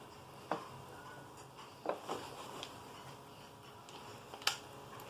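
A few separate knocks and taps of wooden leg pieces being handled and set in a clamping jig. The loudest knock comes about four and a half seconds in.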